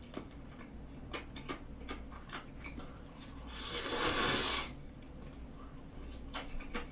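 Jjamppong noodles slurped from a plate in one loud slurp lasting about a second, midway through. Around it are soft wet chewing sounds and scattered small clicks.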